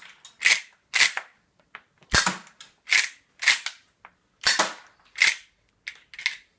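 Marushin M1887 gas-powered 6mm airsoft lever-action shotgun being fired repeatedly, with the lever racked hard between shots. About nine sharp cracks and metal clacks come roughly every half second to second.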